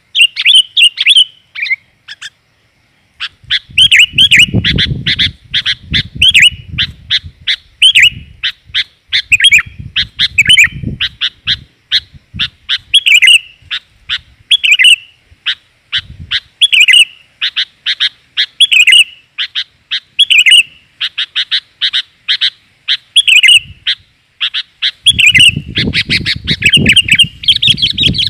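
Sooty-headed bulbul (kutilang) calling non-stop, a rapid run of short, sharp chirps with only a brief pause early on, played as a lure call for trapping. A low rumble comes and goes underneath a few times.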